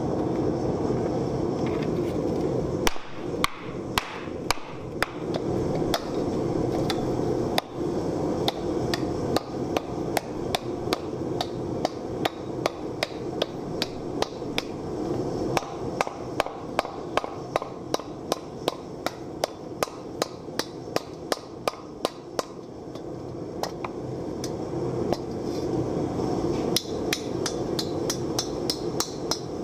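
A hammer dishing a hot sheet-metal wok blank into a hollow in a wooden stump: sharp strikes about one to two a second, starting about three seconds in and coming quicker near the end. Under them runs a steady rushing noise, the gas forge burning.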